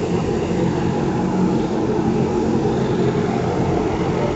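Motorised road sweeper running: a steady engine drone with a few held tones.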